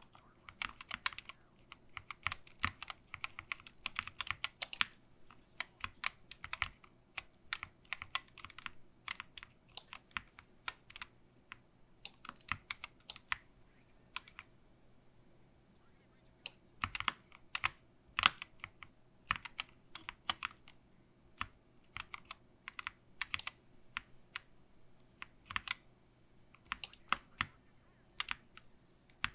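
Typing on a SteelSeries Apex Pro Mini Wireless keyboard with OmniPoint magnetic switches: irregular runs of keystroke clacks, with a pause of about two seconds near the middle.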